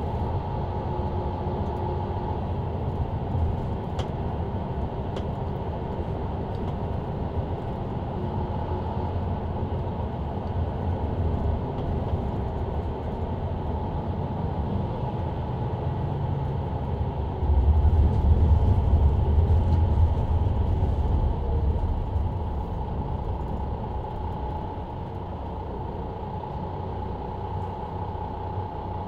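Mercedes-Benz Citaro C2 LE bus with ZF EcoLife automatic gearbox driving, heard from the rear seats near the engine: a steady engine and drive rumble. It grows louder and deeper for a few seconds about two-thirds of the way through, then eases off near the end.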